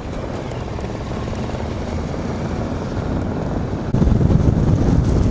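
Motorcycle engines running steadily at riding speed, with a sudden step up in loudness and low rumble about four seconds in.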